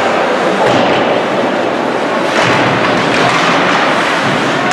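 Ice hockey game in a rink: a steady, echoing rush of noise with scattered faint knocks of sticks, puck and skates, growing brighter about halfway through.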